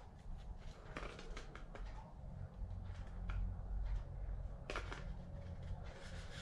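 Small plastic clicks and rubbing as a lens hood is twisted and pushed onto a camcorder's lens, a few sharp ticks scattered among quieter handling sounds over a low hum.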